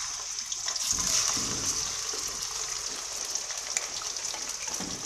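Raw chicken pieces frying in hot cooking oil in an iron karahi: a steady hissing sizzle that eases slightly, with a few small crackles.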